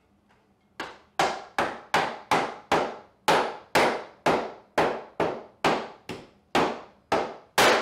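A run of about sixteen sharp knocks on wood, roughly two a second, each ringing out briefly, like blows from a mallet or hammer.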